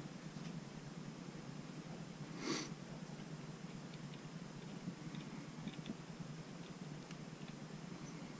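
Faint handling sounds of a metal chamfering cutter being wiped with a cloth patch and oiled with cutting fluid: one short soft swish about two and a half seconds in, then a few light clicks.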